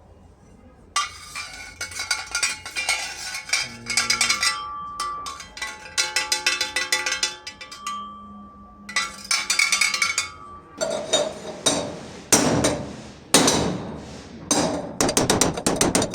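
Metal struck with a hammer in quick bursts of blows, with a metallic ringing after the strikes.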